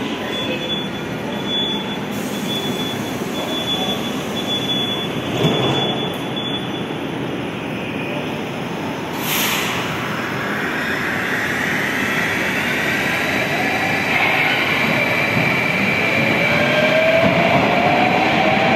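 Moscow Metro train pulling out of the station beside the platform, rumbling and clattering as it picks up speed. About nine seconds in there is a short hiss, and after it a motor whine that rises steadily in pitch as the train accelerates away.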